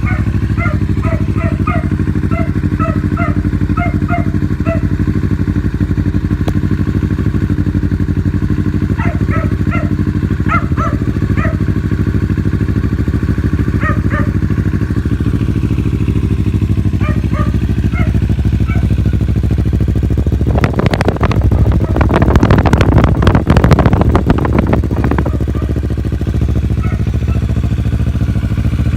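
Kawasaki Ninja 650 parallel-twin engine idling steadily through a Yoshimura R77 full exhaust. About two-thirds of the way in it is revved for a few seconds, louder and rougher, then settles back to idle.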